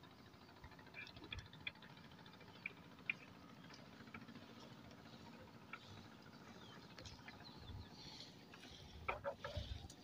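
Fishing net being hauled by hand into a wooden boat: faint rustling with scattered light taps and clicks, and a cluster of louder knocks near the end.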